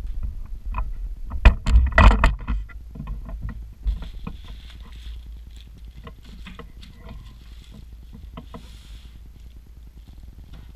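Cardboard monitor box and its packing being handled: a quick cluster of sharp knocks about two seconds in, then plastic bags crinkling as cables and accessories are pulled out.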